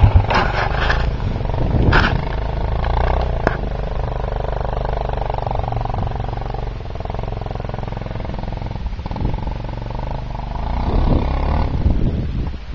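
Quad ATV engine running steadily at low revs, with a few sharp knocks in the first few seconds.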